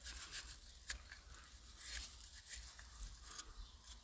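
Faint scrubbing and light scratchy ticks of a wire brush cleaning grime off engine metal, with one sharper tick about a second in.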